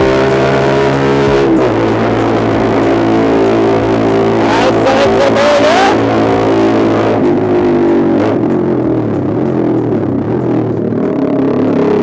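Background music led by electric guitar over bass, moving to new chords about a second and a half in and again around seven seconds, with a bending guitar line around five seconds.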